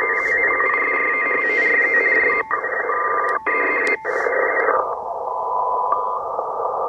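Shortwave receiver audio: a telegraph beacon's Morse tone keyed on and off over band hiss, with a teletype signal warbling alongside. About five seconds in, the receive bandwidth is narrowed: the teletype and the higher hiss drop out, leaving the beacon tone in narrower noise.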